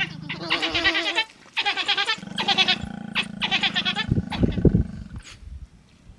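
A pack of African wild dogs giving high, warbling twittering calls in several short bursts, with a lower, rougher call about four seconds in.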